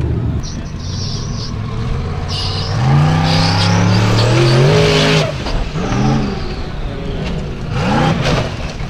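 Formula Offroad buggy engine revving hard on a steep dirt hill climb. Its pitch rises and holds for about two seconds, then cuts off sharply. Two shorter revs follow, the last as the buggy rolls over near the end.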